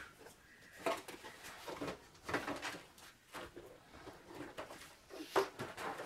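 Cardboard toy packaging being opened and handled: scattered light rustles, scrapes and taps.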